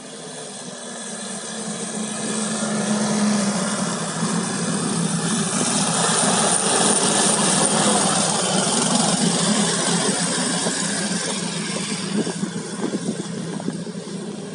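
A small engine running steadily, growing louder over the first several seconds and then slowly fading, like a motor vehicle coming close and moving off.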